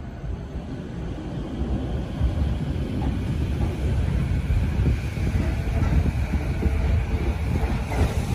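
Tokyo Metro 15000 series electric train pulling out of the station. A low rumble of wheels on rails and traction motors grows louder about two seconds in as it gathers speed and its cars roll past.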